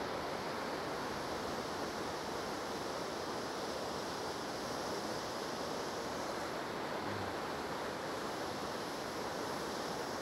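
Niagara River rapids rushing as a steady, continuous roar of fast-flowing water.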